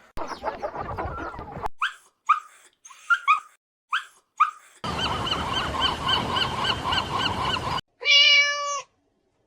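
A string of different animal calls edited back to back. It opens with a rough, noisy call, then comes a series of short rising chirps, then a rapid run of repeated calls, and near the end one short, loud honk.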